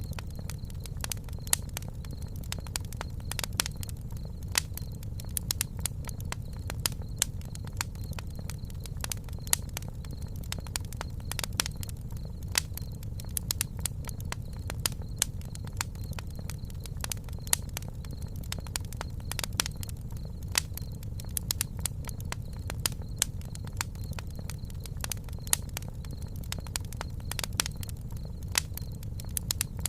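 Wood campfire crackling: irregular sharp pops and snaps, several a second, over a steady low rumble.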